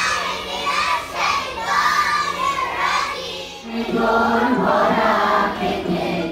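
Many schoolchildren's voices reciting Quranic verses in unison. A little over halfway in, this gives way to group singing of the national anthem, on steadier held notes.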